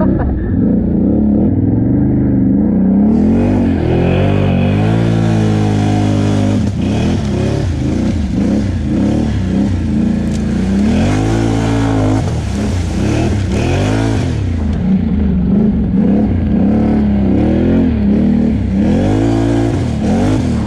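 Can-Am Outlander 850 XMR ATV's V-twin engine revving up and down again and again under load as it is ridden through mud. A rushing noise rides over the engine from about three seconds in until about fifteen seconds in.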